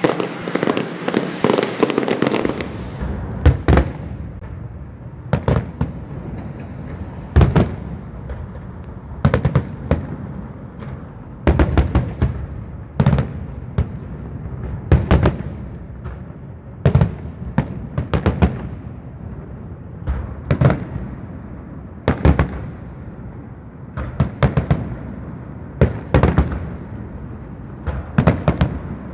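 Aerial fireworks bursting overhead: a steady run of sharp bangs, roughly one every second or two, some coming in quick clusters. Traffic noise runs under the first couple of seconds.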